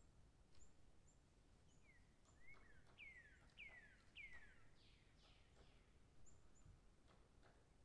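Faint bird calls: a run of about five descending whistled notes in quick succession starting about two seconds in, with short high chirps scattered around them over a low background hiss.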